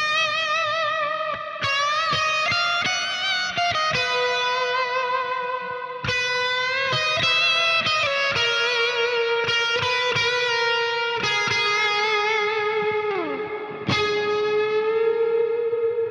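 Telecaster-style electric guitar playing slow, sustained single notes with vibrato through the Source Audio Collider's E-Dome (Enormo Dome) reverb, a huge reverb that leaves long, overlapping tails. Near the end one note slides down in pitch before a fresh note is picked.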